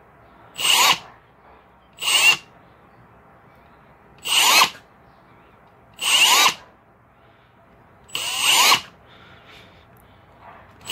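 Milwaukee M18 Fuel Gen3 hammer drill's brushless motor spun up and let wind down in five short trigger pulls, each a quick rising whine that falls away as the trigger is released, about every two seconds.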